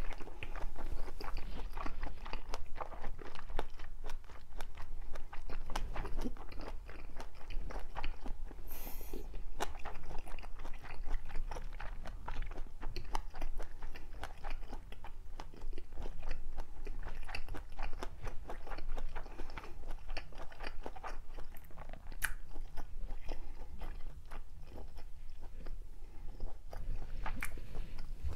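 A person chewing and crunching food close to the microphone, mukbang-style, with a dense run of small irregular crunches and mouth clicks.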